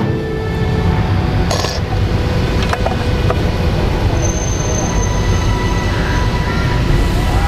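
Steady low rumble of background noise, with a few short clinks, one about a second and a half in and another near three seconds.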